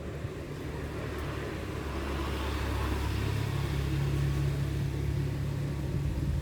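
A motor vehicle passing, heard as a low rumble with a rising and falling rush of noise that peaks about halfway through.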